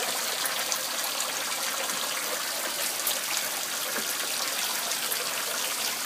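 Water running steadily from a park drinking fountain.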